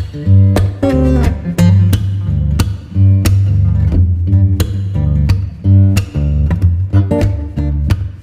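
Background music: acoustic guitar playing a rhythmic, strummed and plucked tune over a steady bass.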